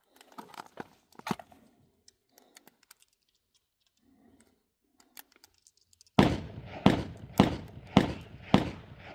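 A few faint clicks, then five gunshots fired in quick succession, a little over half a second apart, each ringing out briefly after the crack.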